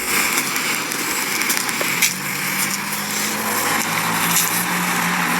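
Steady hiss of rain with a low, even hum underneath.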